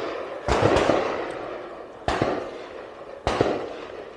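Gunfire from soldiers on a military training ground: four shots, the first two close together, then two more about a second apart. Each ends in a long echoing tail.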